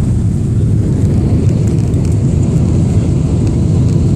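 Steady low rumble inside the cabin of a Boeing 777-300ER airliner: engine and airflow noise, loud and unbroken.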